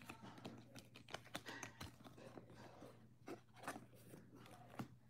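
Faint rustling and clicking of a stack of Pokémon trading cards being shuffled and flipped through by hand, over a low steady hum.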